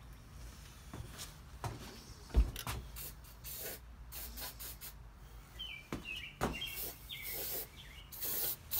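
Hand work on an engine case: short hisses and light knocks, with a louder thump about two and a half seconds in and a few faint squeaks later on.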